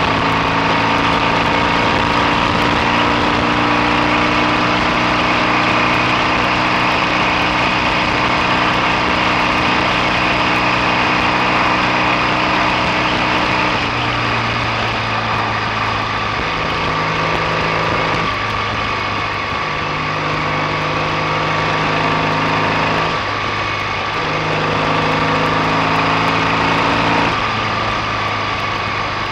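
BSA A65 650 parallel-twin engine running on the move, its note steady for about the first half, then shifting up and down several times.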